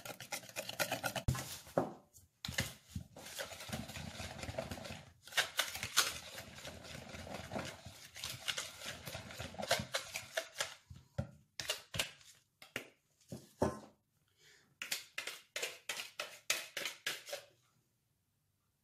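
Wire whisk beating banana cake batter in a plastic mixing bowl: rapid clicking and tapping of the wires against the bowl, in several bursts with short pauses, stopping near the end.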